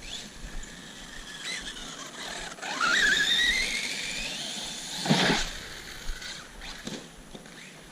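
Traxxas Sledge RC truck's brushless electric motor whining, rising steadily in pitch as it accelerates, starting a little under three seconds in. About five seconds in, a short, loud burst of noise.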